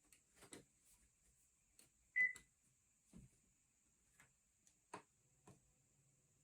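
A single short, high electronic beep about two seconds in, amid scattered faint clicks and taps.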